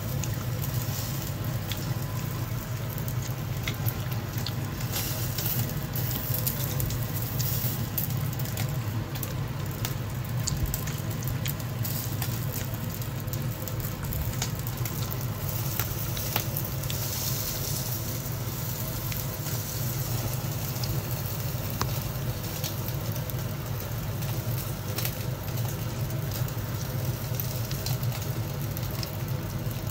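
Whole fish sizzling and crackling on a wire grill rack over a gas stove burner, with scattered small pops over a steady low hum.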